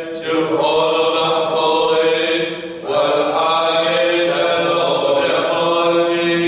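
Syriac Catholic liturgical chant: voices singing unaccompanied in long held notes. There is a brief break about three seconds in before the next phrase begins.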